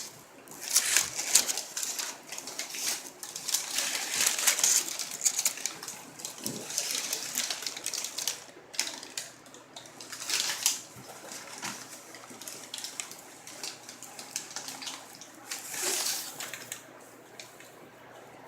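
Packaging being unwrapped and handled: crinkling and rustling in quick crackly spells, loudest in the first few seconds and again twice later on.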